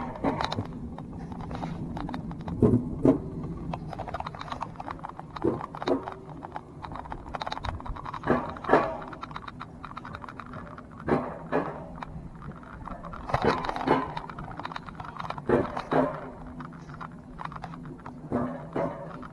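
Alpine coaster sled running on its steel tube track, its wheels knocking in pairs about every two to three seconds over a steady low hum.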